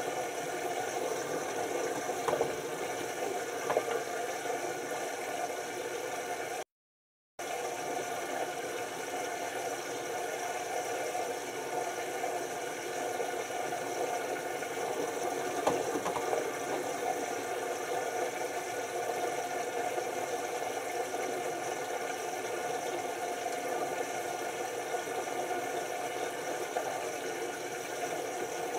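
LG TurboWash 6 Motion front-loading washing machine in its first rinse: the drum turning and tumbling wet laundry, a steady mechanical hum with faint knocks of the load. The sound cuts out for under a second about seven seconds in.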